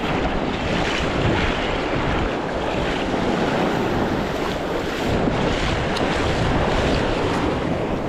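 Surf washing on the beach with wind buffeting the microphone, a steady rushing noise that swells and eases slightly.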